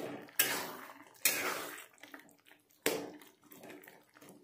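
A flat spatula stirring and scraping through thick, wet tomato pickle mixture in a kadai, giving four wet squelching scrapes over the first three seconds as the tomatoes soften and break down.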